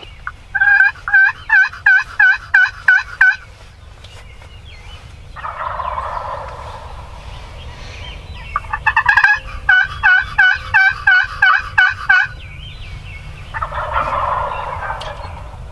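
Wild turkey calling: two loud runs of turkey yelps, about three notes a second, each followed by a quieter rattling gobble.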